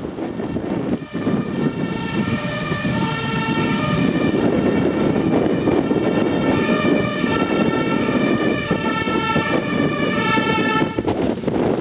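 Fire engine's two-tone siren sounding, its high and low notes alternating about every half second. It gets louder over the first few seconds as the engine approaches on an urgent call, and stops about eleven seconds in.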